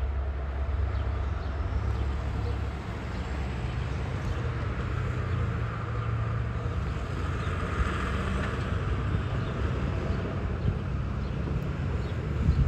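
Diesel locomotive running with a low, steady engine drone; its deepest rumble fades about three seconds in.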